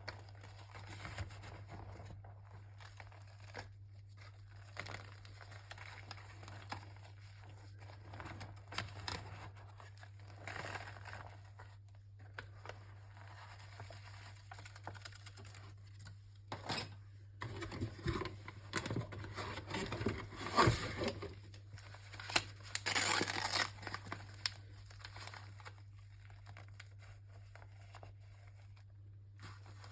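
Gritty chalk crunching and crumbling, with dry crinkling, in scattered bursts that grow denser and louder about two-thirds of the way through, over a steady low electrical hum.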